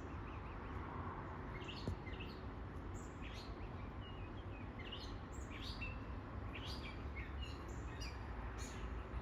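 Birds chirping: a run of short, high chirps, repeating irregularly and growing busier after the first second or two, over a steady low background rumble.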